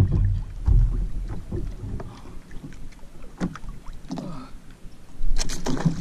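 A large kingfish (king mackerel) thrashing in an angler's grip on a kayak: irregular dull thumps and splashes as its tail kicks at the water, with a burst of hard splashing near the end.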